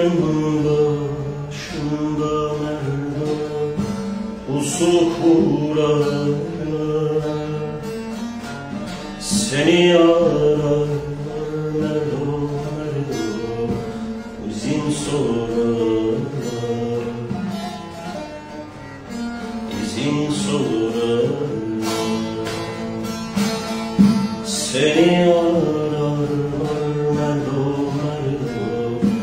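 Bağlama (saz) playing a Turkish folk song, with a man's voice singing phrases that recur about every five seconds.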